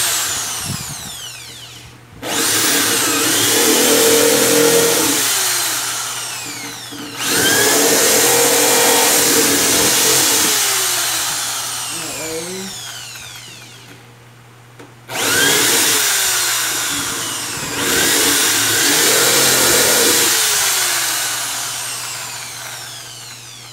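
Corded electric drill boring a starter hole for a jigsaw blade through the top of a speaker cabinet, run in repeated bursts. Each burst starts suddenly and ends in a falling whine as the motor spins down.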